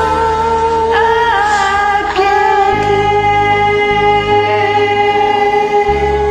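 Female vocals in a karaoke duet, drawing out one long sung note that holds steady for several seconds, over a backing track with steady low bass notes.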